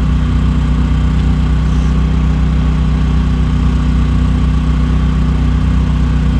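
Petrol generator's engine running at a steady speed, a constant even hum.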